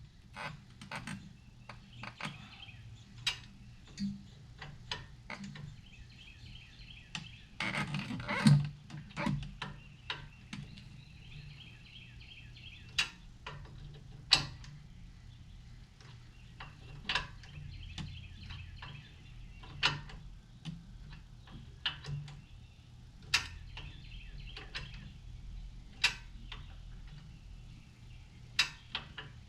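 Scattered metallic clicks, clinks and knocks at irregular intervals: hand tools and metal parts handled while taking off a truck's front brake caliper. A low steady hum runs underneath.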